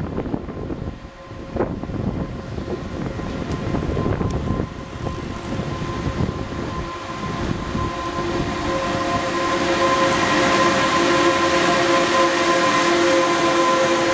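Freight train of tank wagons hauled by an electric locomotive running in and past along the platform, getting louder. From about halfway a steady high-pitched brake squeal builds up as the train slows to stop.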